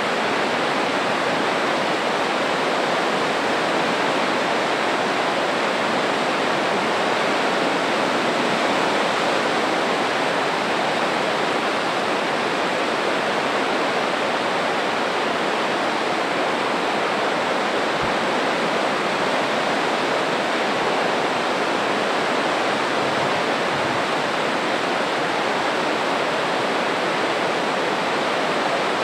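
Spokane Falls in heavy flow: a steady, loud rush of whitewater pouring over the falls and churning through the rapids below.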